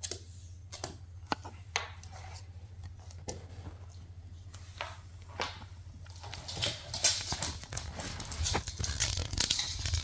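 Two Shiba Inus, a puppy and an adult, play-wrestling: scattered clicks and knocks of paws and claws on a wooden floor, turning into a busy, continuous scrabbling and scuffling from about six seconds in.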